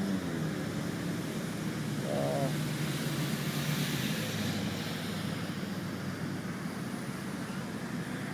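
A crane truck's engine running steadily, a low drone with a hiss of wind and outdoor noise over it; the engine note drops a little about halfway through.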